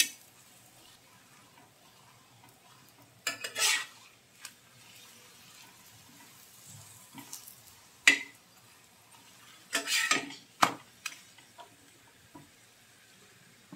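A spatula scraping and knocking against an iron tawa as a lachha paratha is flipped and pressed, in a few separate strokes, the sharpest about eight seconds in. Between the strokes the ghee under the paratha sizzles faintly.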